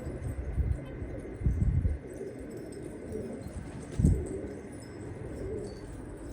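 Domestic pigeons cooing, a low wavering murmur, broken by a few dull low thumps, the loudest about half a second in, around a second and a half in, and about four seconds in.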